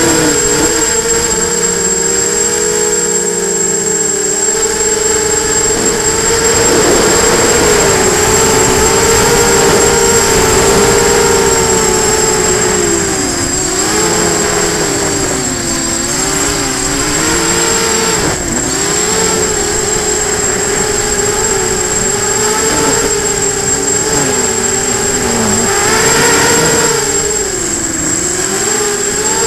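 Brushless motors and propellers of an FPV hexacopter whining in flight, the pitch rising and dipping again and again as the throttle changes. A steady high-pitched tone sits above it.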